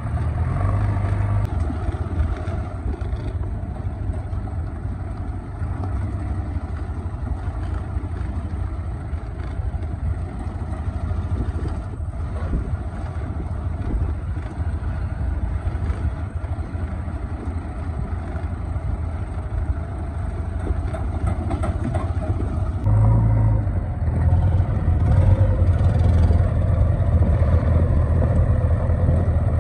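JCB 3DX backhoe loader's four-cylinder diesel engine running steadily as the machine drives along a dirt track. It gets louder and heavier about 23 seconds in.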